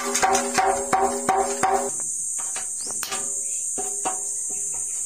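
Background music with a steady percussive beat and repeated short pitched notes; it thins out about two seconds in.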